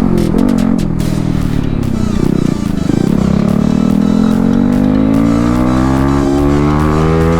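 Motorcycle engine accelerating hard: a brief drop in revs about two and a half seconds in, like a gear change, then a long steady rise in pitch as it pulls.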